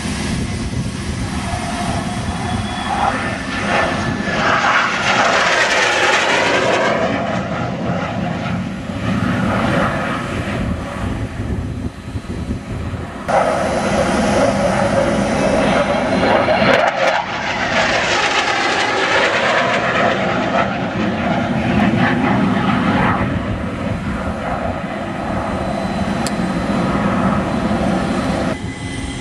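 CF-18 Hornet fighter jet's twin turbofan engines rushing past overhead. The jet noise swells and fades twice, loudest about five seconds in and again around eighteen seconds, with a sweeping whoosh as the jet passes.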